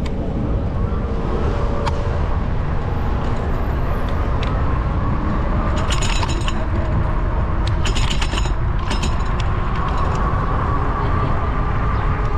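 Wind rushing over the microphone of a camera mounted on a moving bicycle, with road noise, and a few short rattles around the middle.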